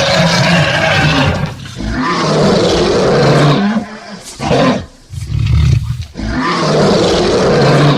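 A large animal roaring: four long, loud, deep roars with short grunts between them.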